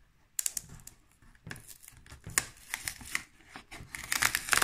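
A cardboard Pokémon Celebrations collection box being opened by hand: scattered crackles and clicks of card and wrapping that grow busier near the end.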